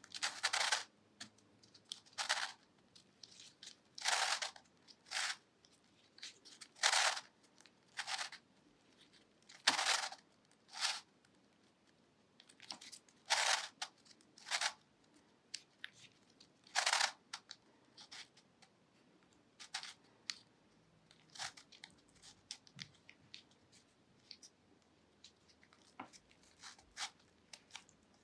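3D-printed Ripple Dodecahedron twisty puzzle being turned by hand: short scraping rasps of its plastic pieces sliding against each other as each face turns, one every second or two. The turns are louder through the first half and fainter in the last ten seconds or so.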